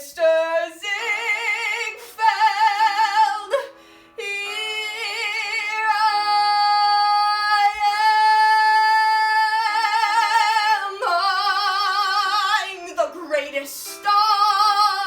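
A woman's solo voice belting a Broadway show tune with wide vibrato, holding one long high note through the middle before more short phrases, over faint accompaniment.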